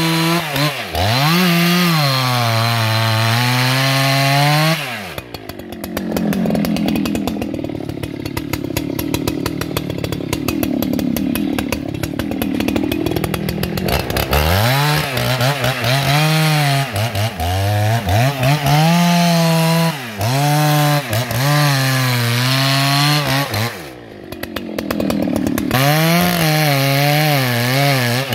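Husqvarna 281 XP two-stroke chainsaw cutting into a red eucalyptus trunk at high revs, its pitch wavering up and down under load. It drops to idle between cuts, for about nine seconds after the first cut and again briefly near the end.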